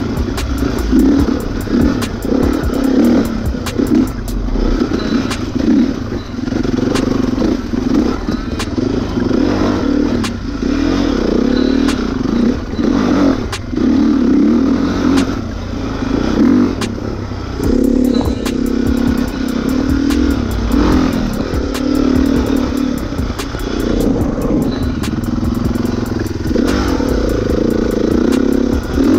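Dirt bike engine running hard, revving up and down continually as the rider works the throttle along the trail, with frequent clattering knocks throughout.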